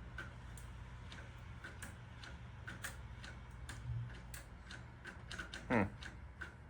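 Light, fairly fast ticking, roughly two or three clicks a second with uneven gaps, from an electric golf cart's light-kit controls being worked, over a faint steady hum. A brief falling hum comes near the end.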